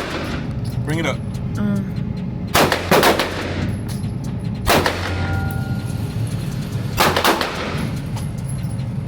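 Several gunshots fired at irregular intervals, each sharp crack trailing off in an echo, over a steady low hum from the range.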